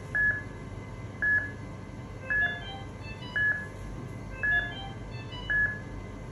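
Patient monitor beeping in time with the heartbeat: short beeps at one steady pitch, a little under one a second, with fainter higher tones between them.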